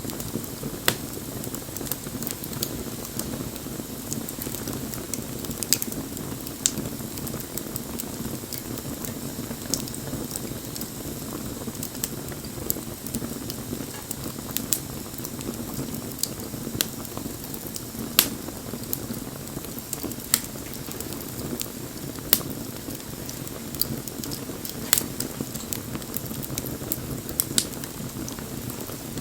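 Wood bonfire burning: a steady low rush from the flames with scattered sharp crackles and pops from the wood, coming irregularly every second or few.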